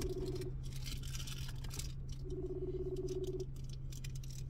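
Phone ringback tone heard over a phone's speakerphone: one ring ends about half a second in and another rings for about a second from about two seconds in. The outgoing call is ringing and has not been answered. A steady low hum sits underneath.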